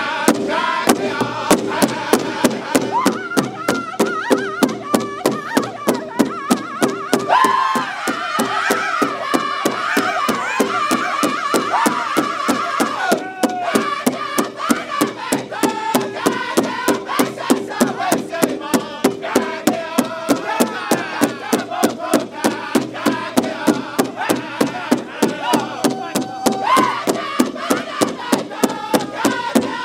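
Powwow drum group singing in high voices together over a steady, fast beat struck in unison on one large hide drum.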